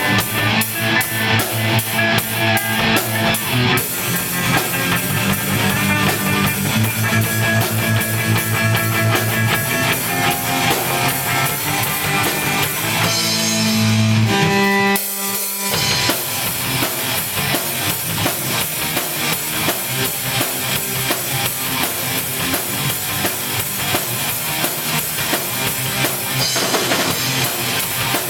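Punk rock band playing an instrumental passage: electric guitars and bass over a fast, steady drum-kit beat, with no vocals. About halfway through the bass drops out briefly, then the full band comes back in.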